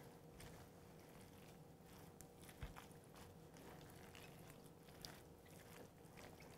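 Near silence, with faint, irregular soft squishes and light scrapes from a spatula stirring a chunky chicken and mayonnaise filling in a glass bowl.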